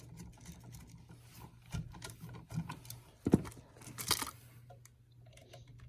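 Scattered small clicks and taps of hands and a screwdriver working a wall outlet's terminal screw and wire, with one sharper knock a little past halfway.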